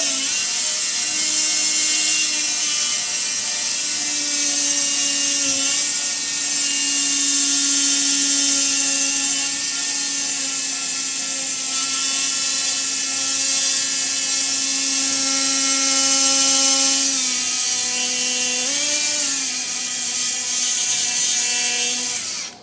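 Powered bone saw running steadily as it cuts the osteotomy through a dog's tibial crest, a high whine whose pitch sags and recovers a few times under load. It cuts off suddenly near the end.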